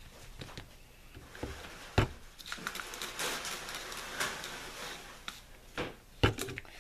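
Paper napkins rustling and being handled on a paper plate, with a sharp knock about two seconds in and a few more knocks near the end.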